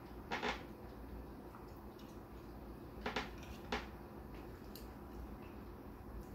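Chopsticks and ceramic bowls clicking during a meal: a quick double click about half a second in, then two close clicks a little after three seconds and a single click shortly after.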